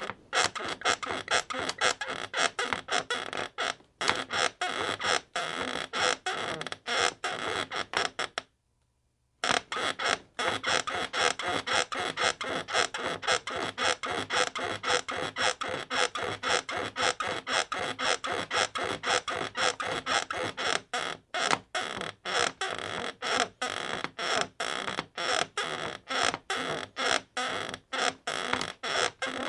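Bed creaking in a fast, steady rhythm, about three creaks a second, with the sound cut out for about a second near nine seconds in.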